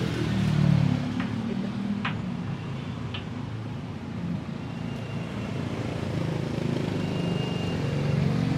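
Low, steady vehicle rumble that swells near the start and again near the end, with a few sharp clicks about one, two and three seconds in.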